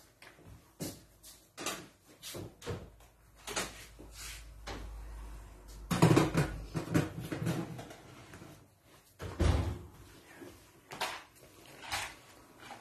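Oven door being opened and shut as a baking tray goes in, among scattered knocks and clatter of kitchen handling. The loudest thud comes about six seconds in, with a second heavy thump about three seconds later.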